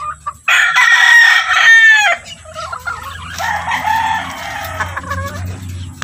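A gamefowl rooster crows loudly about half a second in, the crow ending on a falling note, followed by quieter clucking and calls from chickens.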